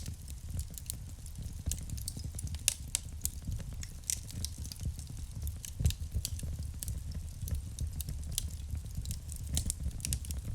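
Wood fire burning in a fireplace: irregular crackles and snaps of burning logs over a low, steady rumble of flame, with a sharper pop about six seconds in.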